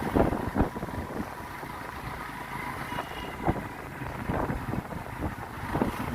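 A moving vehicle on a rough road: steady road and engine noise with wind on the microphone and irregular knocks and jolts.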